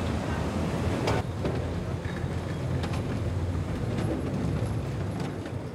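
Steady low machinery rumble in an aircraft carrier's hangar bay, with scattered clicks and knocks and one sharp knock about a second in.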